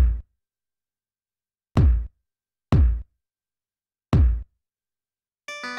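Electronic bass drum (kick) loop from a urban-music sample library: four deep kick hits at uneven spacing, each a sharp thud with a quick falling tone. Near the end a sustained pitched instrument loop begins.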